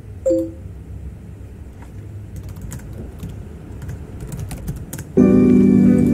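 A scatter of quick clicks from a computer keyboard and mouse, about a dozen in three seconds, over faint background music with a soft chime-like note near the start. About five seconds in, a lo-fi music track comes in suddenly and loudly.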